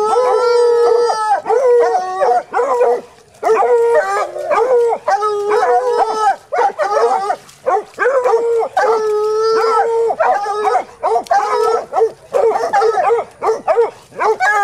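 A pack of hound puppies baying a small boar hog: overlapping long, drawn-out bawls and shorter barks, repeating almost without pause, the sound of dogs holding a hog at bay.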